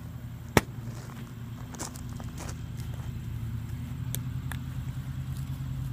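A small engine, likely a lawn mower, drones steadily in the background. About half a second in, a filled plastic water bottle smacks down hard, followed by a few lighter knocks.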